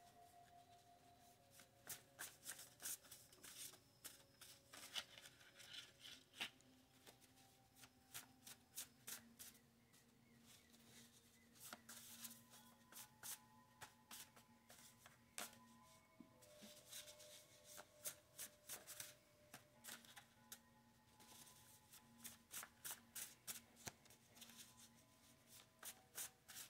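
A deck of tarot cards being shuffled by hand, faint, in repeated bursts of quick riffling clicks with short pauses between them.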